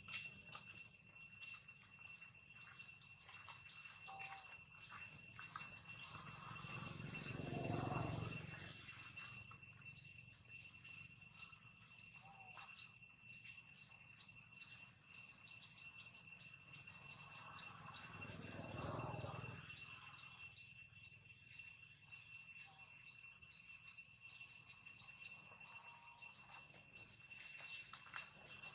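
Forest chirping: a long run of short high chirps repeated evenly, several a second, over a faint steady high tone. Two low rumbles swell and fade, around 8 and 19 seconds in.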